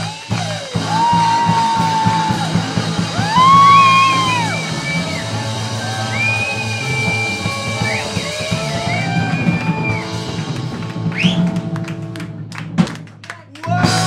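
Live rock band playing loud: drum kit, electric guitar and bass, with held, sliding high notes sung over a steady chord. In the last few seconds comes a quick run of drum hits, a brief drop, and then the band crashes back in.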